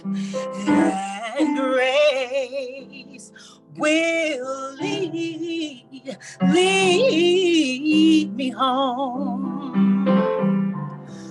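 A woman singing a slow solo with strong vibrato, accompanied by piano. She sings in several long phrases with short breaks between them, over sustained piano notes.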